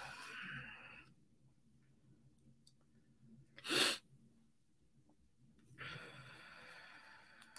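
A person's breathing close to a microphone: one short, sharp breath out about four seconds in, with fainter breath hiss near the end.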